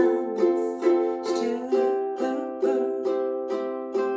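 Ukulele strummed chords in a steady rhythm, about two strums a second, with a chord change about two seconds in.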